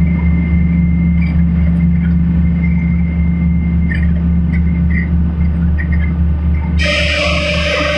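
Old dock gangway machinery running with a steady low drone. Near the end, music comes in over it.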